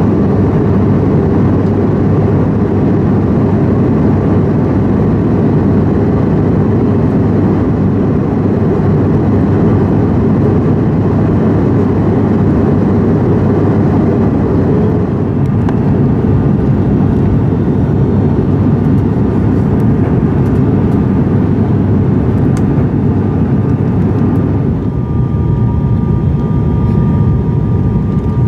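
Steady roar of an airliner's engines and rushing air heard from inside the cabin during descent. Near the end the roar thins a little and a steady high whine comes in as the plane comes in low over the runway.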